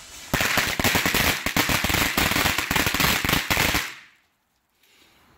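A strip of flash firecrackers (Ghost Platinum Flash Crackers) going off in a rapid, uneven string of loud bangs. It starts about a third of a second in and stops near four seconds in.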